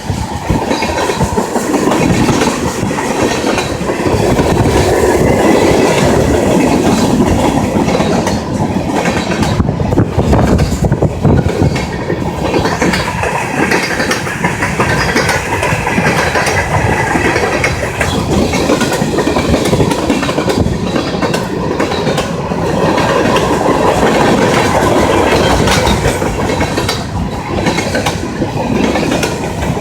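Norfolk Southern freight train cars rolling past, a steady rumble with the wheels clattering over the rail joints.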